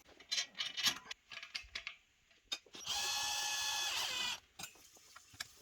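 Light clicks of metal wardrobe parts being handled, then, about three seconds in, a steady mechanical whirr lasting about a second and a half as a screw is driven into the frame.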